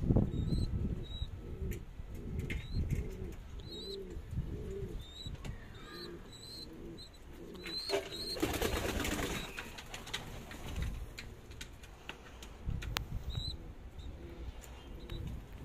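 Roman pigeon squabs in the nest giving short, high peeping squeaks mixed with low cooing notes, about two a second, through the first few seconds. A burst of rustling comes about eight seconds in, then scattered squeaks.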